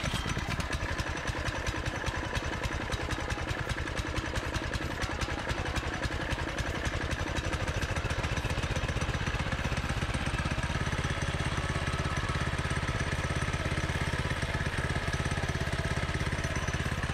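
Mini buggy's 196cc single-cylinder OHV engine catching and then idling steadily with a fast, even beat; its low note fills out a little about halfway through.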